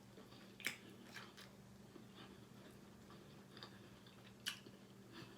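Faint chewing and biting of chicken, with small wet mouth clicks and two sharper crunchy bites, one near the start and one near the end.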